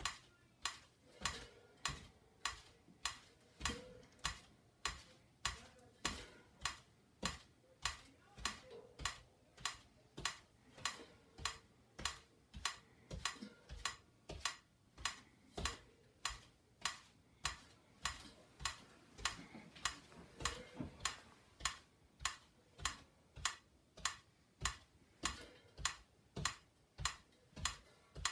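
Metronome ticking at a steady, even beat, about three ticks every two seconds, keeping time for crash-cymbal flip practice.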